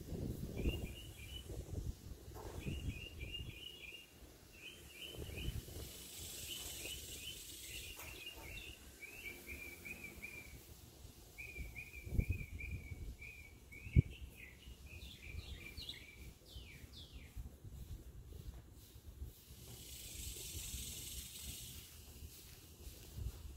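Songbird chirping in quick runs of short notes, with a few fast falling notes later on, over gusts of low wind noise. A single sharp click about fourteen seconds in.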